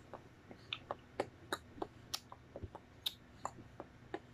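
Light, irregular clicks and taps, about three or four a second.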